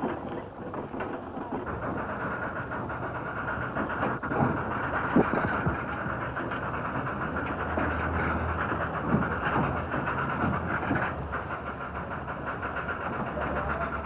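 A train running across the steel railway bridge: a steady rolling noise with a low rumble that grows stronger in the middle and eases off near the end.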